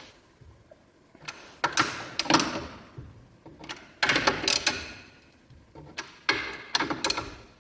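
Ratchet wrench clicking in about four short bursts with pauses between, as the nuts holding a wheel spacer to the front hub are tightened.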